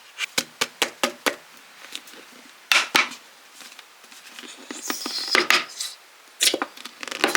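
Kitchen utensils and dishes knocking and clinking: a quick run of sharp taps about half a second to a second and a half in, then scattered knocks with a brief scrape near the middle.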